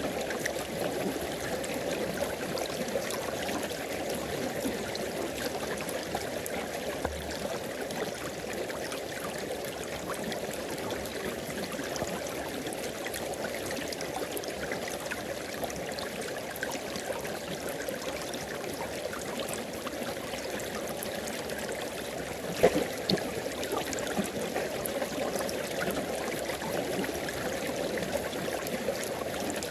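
A tropical river flowing, a steady rushing and trickling of water. One short sharp knock stands out about three quarters of the way through.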